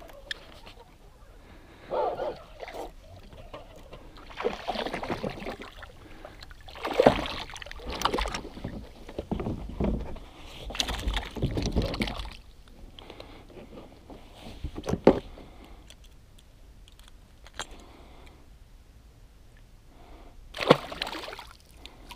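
Water splashing and sloshing against a plastic sit-on-top kayak in irregular bursts, as a hooked fish is worked beside the hull, with one sharp knock about fifteen seconds in.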